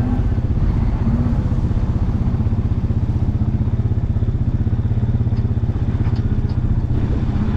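Tractor engine running steadily under load, with a fast, even throb, as it drives a straw shredder that shreds and blows straw for bedding.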